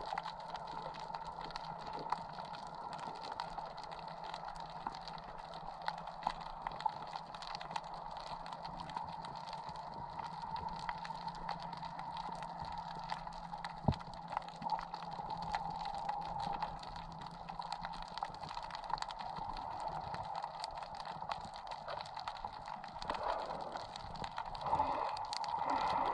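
Underwater ambience picked up by a camera in its housing: a constant crackle of fine clicks over a steady hum, with one sharper click about halfway through. In the last few seconds a louder, wavering rush of water movement comes in.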